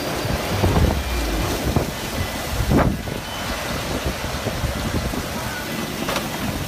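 Strong storm wind gusting, a dense rushing noise with heavy low buffeting on the microphone.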